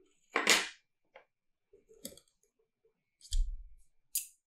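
A glass microscope slide being handled on a ceramic tile: a short swish about half a second in, a couple of light clicks, a dull knock on the table past the middle, and a sharp tap near the end.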